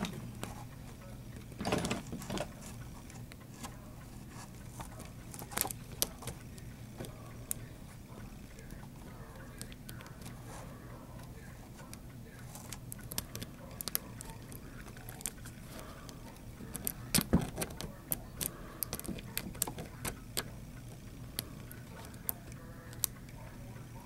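Lock picks working in an old Eagle wafer padlock: scattered small metallic clicks and scrapes as the pick moves the wafers under tension. There are louder clusters of handling knocks about two seconds in and again around seventeen seconds in.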